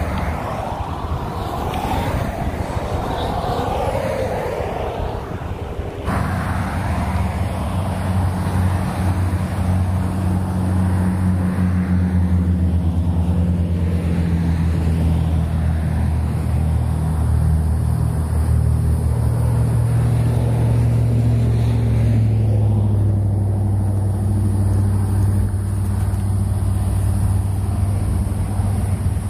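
Wind noise on the microphone, then from about six seconds in a steady low engine hum whose pitch dips slightly around the middle.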